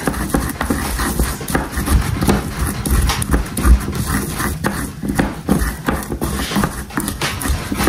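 A wooden pestle pounding green chiles and salt in a clay bowl: repeated dull knocks of wood on clay, about two to three a second, crushing the chiles to a coarse mash for chimol.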